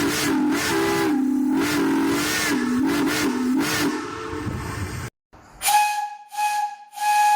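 Steam whistle of an Andrew Barclay industrial steam locomotive blowing with a hiss of steam: a long, low double note that wavers up and down in pitch, cut off abruptly about five seconds in, then three short, higher-pitched toots.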